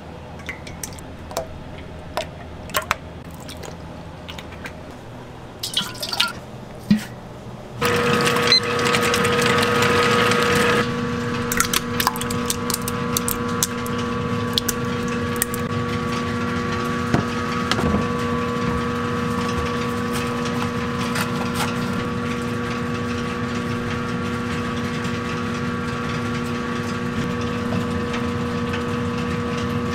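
Liquids poured into steel bowls: oil and a tub of raw egg yolks sliding out, with small clinks against the metal. About eight seconds in, a steady machine hum with a held whine starts suddenly and runs on under the pouring.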